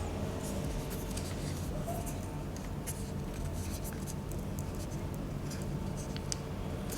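Light scratching and a few small ticks from hands working on an opened laptop's insides, peeling off a sticker and handling the battery, over a steady low hum.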